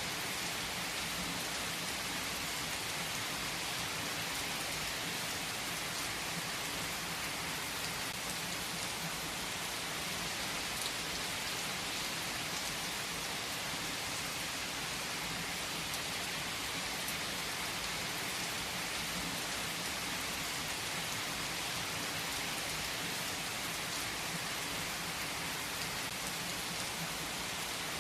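Steady, even rain falling, with a few faint ticks now and then.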